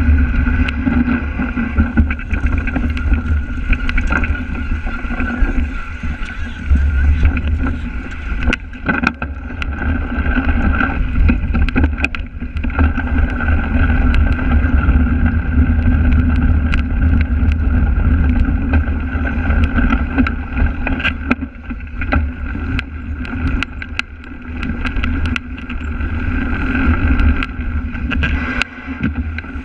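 Wind buffeting and rumbling on a bike-mounted action camera's microphone while riding a cyclocross course over rough, muddy grass, with frequent sharp knocks and rattles from the bike jolting over the ground.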